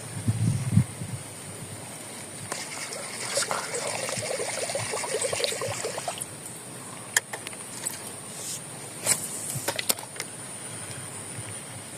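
Water splashing and trickling, loudest for a few seconds in the middle. A steady high hum runs underneath, with a few low thumps at the start and several sharp clicks later on.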